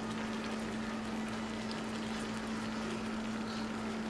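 A steady low hum with the faint crackle of shrimp cooking in a hot skillet.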